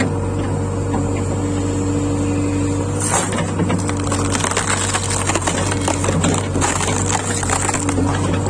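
JCB 3DX backhoe loader's diesel engine running under load with a steady hydraulic whine. About three seconds in, crackling and splintering starts as a tree root is broken out and crushed by the bucket.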